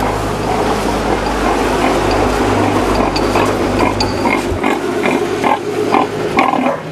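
Pigs grunting, with many short calls from about two seconds in, over a steady low hum that fades out about five and a half seconds in.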